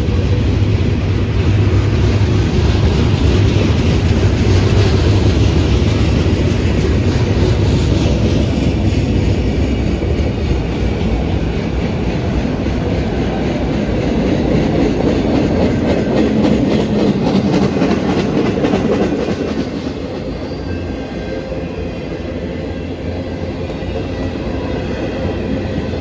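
Freight train rolling past, its railcar wheels clicking over the rail joints. The sound eases off about 20 seconds in.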